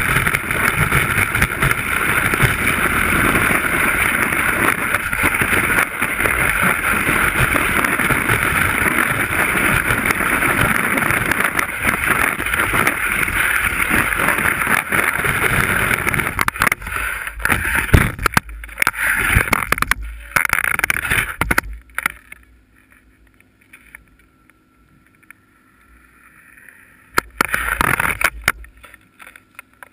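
Ski sliding over snow heard through a camera mounted on the ski itself: a loud, steady hiss and scrape. It breaks up after about 16 seconds and drops almost to quiet for a few seconds about 22 seconds in, with a short burst of scraping near the end.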